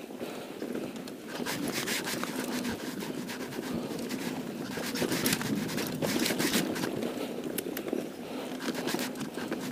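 Mountain bike rolling fast down a dry dirt trail: tyres scraping and crunching over loose gravel and dry leaves, with frequent sharp clicks and rattles from the bike over the rough ground.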